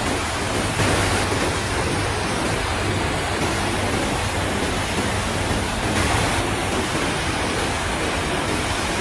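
Floodwater rushing fast through a concrete-walled channel: a steady, unbroken rush of turbulent water.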